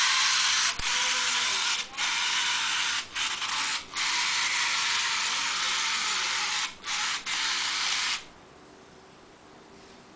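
A small blue toy car's mechanism whirring with a high, hissing buzz. It drops out briefly several times and stops abruptly about eight seconds in.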